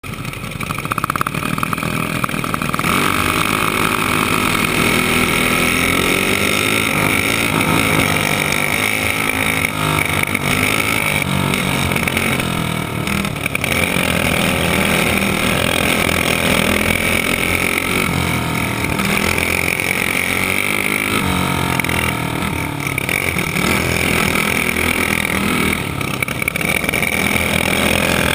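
Racing dirt kart engine at full throttle on track, its pitch rising and falling every few seconds as the driver accelerates and lifts through the laps.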